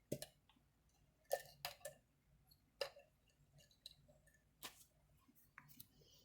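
Light clicks and taps of small craft tools and cardstock being handled on a table, about five sharp ones spread irregularly.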